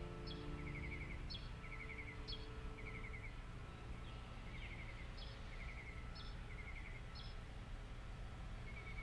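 Repeating animal calls: a short rapid trill alternating with a quick falling chirp, each about once a second, over a steady low rumble. Soft background music fades out in the first few seconds.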